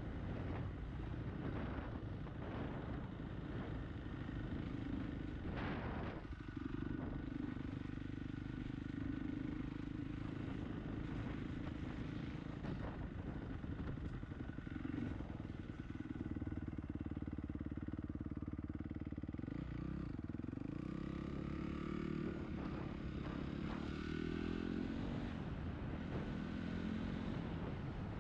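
2017 Honda CRF250 dirt bike's four-stroke single-cylinder engine running while riding, holding a steady pitch for a long stretch. In the last several seconds the revs rise again and again as it accelerates.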